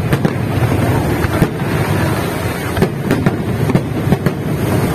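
Fireworks going off: an irregular series of sharp bangs and cracks, several close together in the second half, over a steady low rumble.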